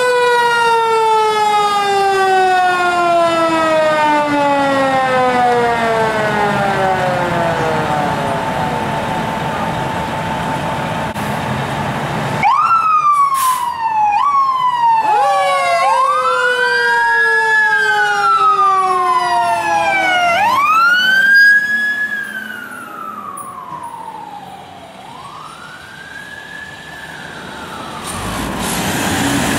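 Fire truck siren wailing. A long wail falls slowly in pitch over about twelve seconds, then a run of quicker wails swoops up and sags back down several times, growing fainter for a few seconds near the end.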